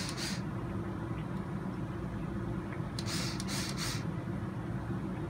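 Steady low hum of room tone, with two short scratchy rustles, one at the start and one about three seconds in, as a rubber RC crawler tire is worked onto its beadlock rim by hand.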